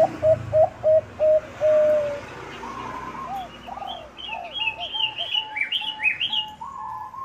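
Zebra dove (Bangkok perkutut) song: a rapid run of short, even cooing notes, about three a second, ending in a longer drawn-out coo about two seconds in. Softer coos follow, with higher-pitched chirping over them in the second half.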